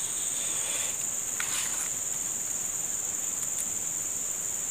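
Steady, high-pitched insect chorus, a continuous buzzing drone of crickets. A brief, fainter noise sounds within the first two seconds.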